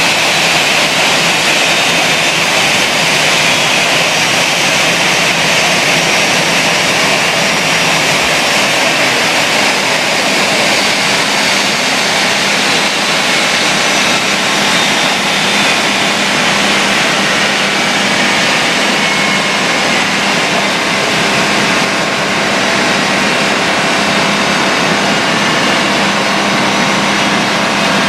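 Airbus A320's jet engines running: a steady loud rush with a high whine that eases slightly in pitch in the first few seconds.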